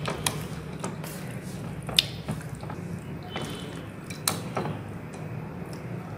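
Hands working a wet spice marinade into raw chicken breast in a glass bowl: soft wet handling sounds with scattered sharp clicks, the loudest about two seconds in, over a steady low hum.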